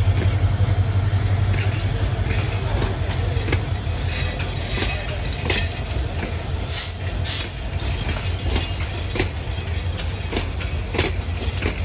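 Bangladesh Railway intercity passenger coaches rolling past close by: a steady low rumble with frequent sharp clicks from the wheels on the rails.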